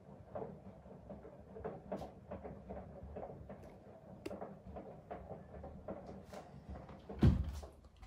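Bosch Serie 4 washing machine running its 30-minute quick wash, heard quietly from a few feet away: a faint low hum with scattered light clicks from the drum turning the laundry. About seven seconds in, a louder bump from handling near the kitchen door.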